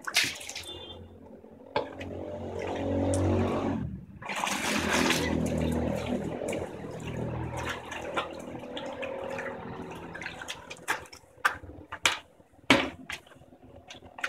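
Water splashing and pouring from a small plastic mug into a plastic bucket of water: a splash at the start, a long pour a couple of seconds in, then scattered smaller splashes and drips near the end.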